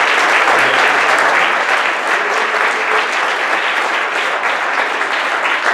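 Audience applauding steadily, a dense patter of many hands clapping that eases slightly toward the end.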